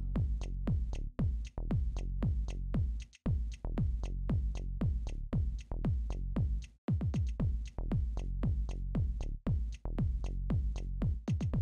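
Electronic background music with a steady kick-drum beat, dropping out briefly twice.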